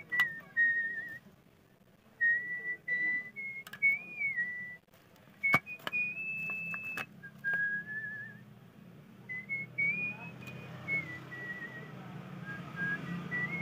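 A person whistling a tune in held notes, some with a quick warble, broken by short pauses. A few sharp clicks fall among the notes, and a low rumble builds up in the last few seconds.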